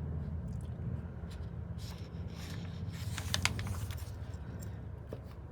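A book page being turned: paper rustling with a few crackles for about two seconds in the middle, over a steady low hum.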